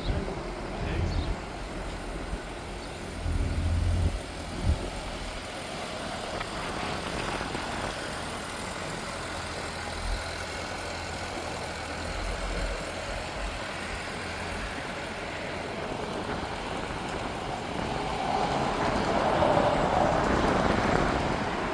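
A vehicle engine running steadily, with a few low thumps in the first five seconds and a louder stretch near the end.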